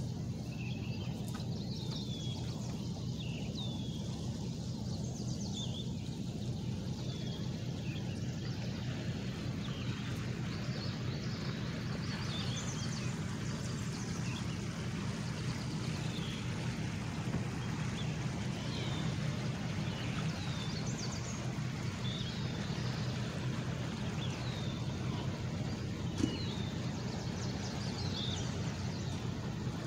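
Small birds chirping: many short, high, falling chirps scattered throughout, over a steady low hum.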